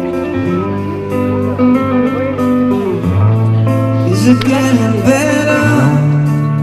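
Background music led by guitar, with steady sustained notes and chord changes.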